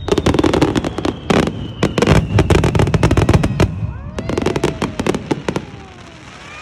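Fireworks going off in a rapid barrage, dense bangs and crackles one after another, that thins out and stops about six seconds in.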